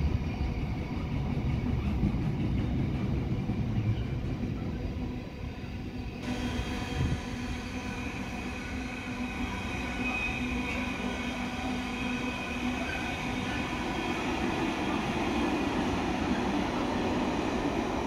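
Container wagons of an intermodal freight train rolling past: a steady rumble of wheels on the rails.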